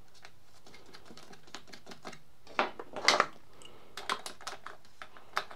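Irregular small metallic clicks and taps as 10mm nuts are picked up and threaded by hand onto the air box studs, with a short cluster of louder clatters about halfway through.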